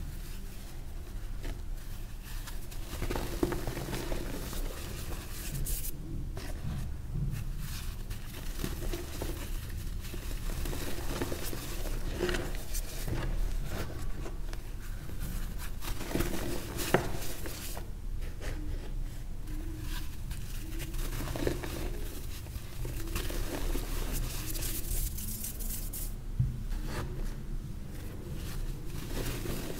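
Pressed, reformed gym chalk being crushed and crumbled: a steady run of dry, powdery crunching and crackling, with occasional sharper snaps as pieces break.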